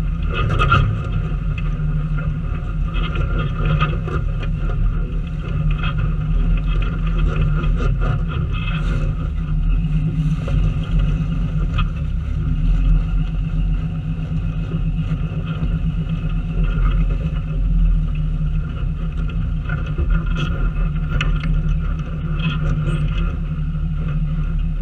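Off-road vehicle's engine running steadily at crawling speed, with the tyres crunching and popping over loose rock.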